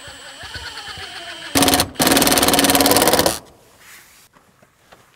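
Milwaukee cordless impact driver driving a screw through a steel door jamb: a short spin about a second and a half in, then a rapid hammering clatter for just over a second as the screw seats.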